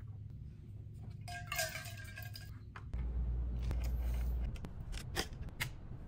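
Handling noises while the factory thermal paste is cleaned off an NZXT Kraken AIO cooler's pump head: a squeaky rubbing about a second in, a low dull rumble for about a second and a half, then a few sharp clicks near the end.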